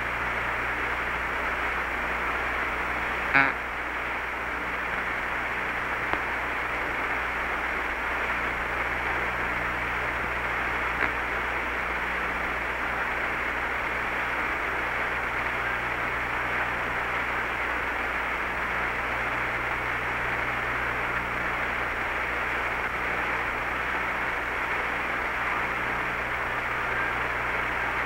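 Steady hiss of an open Apollo 11 air-to-ground radio channel, cut off above the voice band, with a low hum beneath it and a sharp click about three seconds in.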